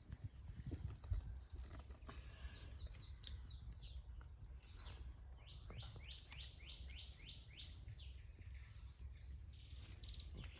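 A bird calling in two quick runs of short, high, falling chirps, about three a second, over a faint low rumble.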